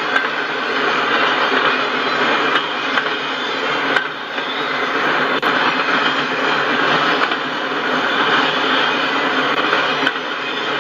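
Autorack freight cars rolling steadily past: the continuous rolling noise of steel wheels on the rails, with a few faint clicks.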